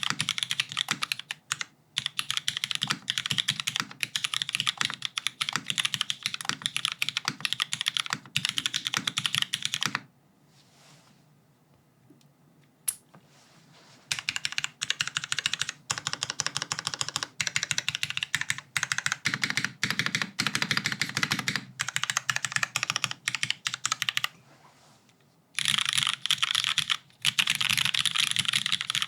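Typing on an ANKA 60XT mechanical keyboard with Hyperglide MX Black linear switches in a top-mounted full aluminium plate, under GMK keycaps: fast runs of key clacks. The typing stops for about four seconds after ten seconds in, with one lone keystroke in the gap, pauses again briefly near the end, and then resumes.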